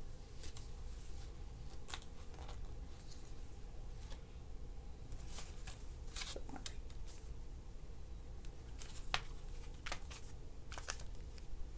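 A CD set and its cardboard slipcase being handled: scattered light clicks and rustles of plastic and card, busiest in the middle and again near the end.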